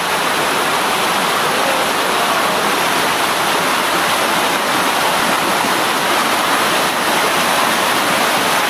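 Small mountain stream cascading down a sloping rock slab: a loud, steady rush of water.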